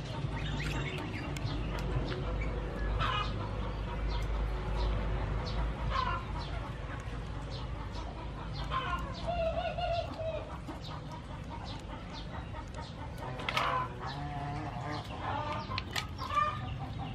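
Chickens clucking on and off, with a few louder calls, over faint clicks of mussel shells being handled and pried open in a bowl of water.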